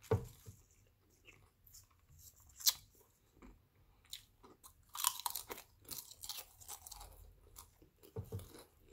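Chips crunching and being chewed, with sharp crisp crunches scattered through and densest in the middle few seconds.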